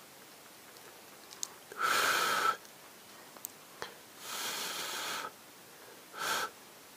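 Pet hedgehog giving three breathy huffs, the longest and loudest about two seconds in, another near the middle, and a short one near the end, with a few faint clicks between them.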